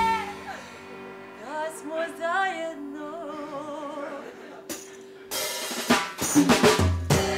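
A live drum kit plays a short fill of snare hits, cymbal and bass drum, starting about five seconds in. Before it comes a quieter stretch in which a held sung note dies away.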